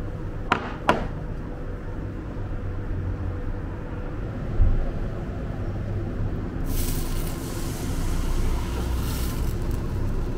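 Crepe batter hitting a hot non-stick frying pan and sizzling, starting about two-thirds of the way in and growing near the end, over a steady low rumble. Two light knocks of the batter bowl near the start and a dull thump in the middle.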